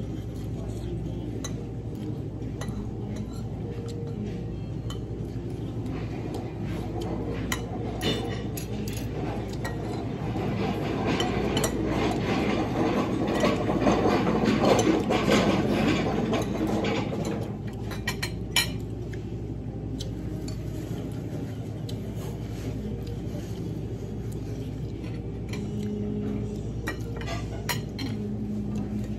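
Metal spoon and fork clinking and scraping against a plate and bowls in short, scattered clicks, over a steady background hum; the background swells louder for several seconds midway.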